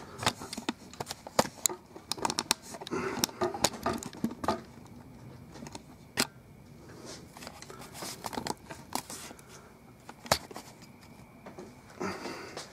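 Handling noise around a PC tower case: a quick run of clicks, taps and rustles over the first few seconds, then occasional single knocks, the loudest about ten seconds in.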